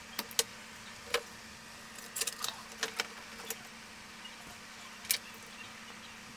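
Sparse, irregular small clicks and taps of a soldering iron and pliers against a circuit board as a through-hole diode is desoldered and pulled out, over a faint steady hum.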